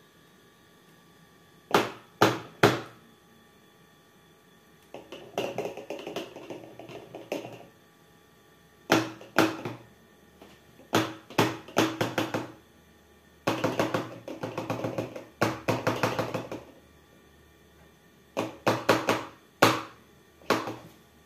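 Plastic funnel tapped and jiggled in the neck of a plastic bottle, to work thick pancake batter down into it: a few single sharp knocks, then runs of quick rattling taps with short pauses between.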